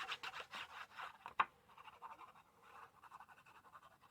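Paper being rubbed and pressed down by hand onto a card box to stick it, a run of quick scratchy strokes with one sharp tap about one and a half seconds in.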